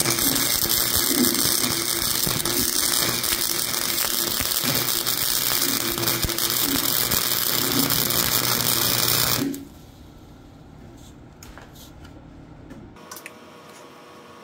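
Flux-core wire welder arc crackling in one continuous weld of about nine seconds, then cutting off suddenly. A nut and washer are being welded onto a broken exhaust stud in an aluminium LS cylinder head so the stud can be turned out.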